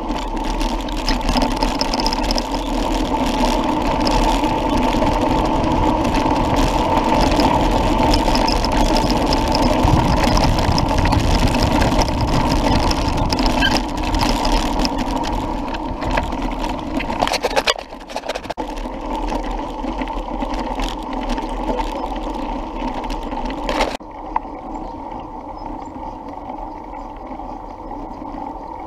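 Mountain bike riding noise picked up by a camera mounted on the bike: tyres rolling over a dirt track with steady rattling from the bike. The sound changes abruptly twice, about 18 and 24 seconds in, and is quieter and duller after the second change.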